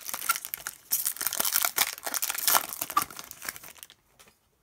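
Foil wrapper of a trading-card pack crinkling and crackling as it is torn open by hand, a stubborn pack that takes some pulling; the crackle dies away after about three and a half seconds.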